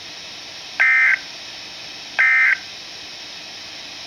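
Two short, harsh digital data bursts, about a second and a half apart, over a steady radio hiss. These are the end-of-message (NNNN) bursts of an Emergency Alert System SAME code sent by NOAA Weather Radio, marking the end of the warning message.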